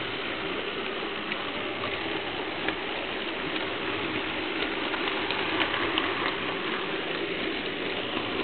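HO-scale model train running along its track, heard from a small camera riding on it: a steady mechanical rattle and hum with scattered light clicks.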